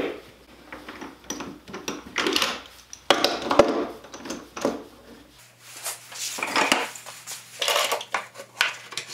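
Veritas surface clamps being handled on a dog-hole workbench: scattered clinks and knocks of metal clamp parts against the bench top and each other, with a board set down among them.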